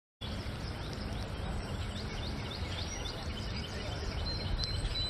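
Steady outdoor riverside noise, starting abruptly just after the start, with a bird chirping repeatedly through the first few seconds.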